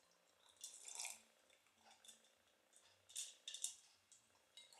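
Faint gulps and swallows of orange juice drunk from a tall glass, coming in two short clusters, about a second in and again about three seconds in.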